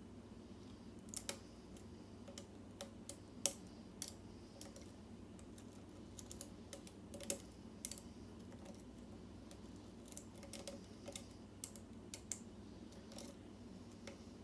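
Irregular small metallic clicks and taps of a hook pick working the pins of a Schlage SC4 lock cylinder held under tension, with the core sitting in a false set. A faint steady low hum lies underneath.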